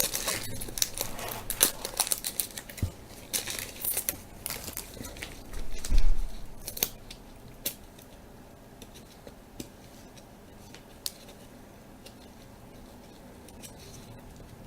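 Foil wrapper of a 1998 Bowman Chrome football card pack crinkling and crackling as it is handled and worked open. The crackling is busiest in the first seven seconds, then thins to a few faint ticks.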